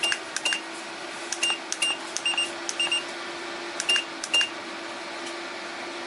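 Minthouz 2000 W PTC ceramic fan heater giving a short high beep with each timer button press, about eight presses in irregular succession, as the timer is stepped up an hour at a time. The heater's fan hums steadily underneath.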